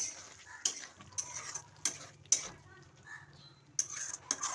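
A flat spatula stirring thin curry gravy in a metal kadhai, with irregular scrapes and clacks against the pan.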